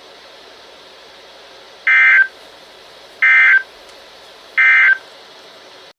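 NOAA Weather Radio Emergency Alert System end-of-message data bursts: three short, buzzy digital tone bursts about 1.3 seconds apart over steady radio hiss. They signal the end of the alert message.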